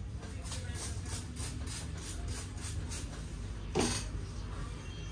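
Hands patting and tapping rhythmically on a head during a head massage, about four strokes a second, then one louder sound near the end, over a steady low background rumble.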